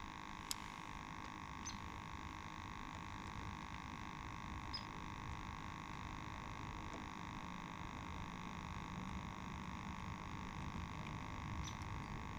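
Faint steady hum over a low even rumble, with a few light ticks.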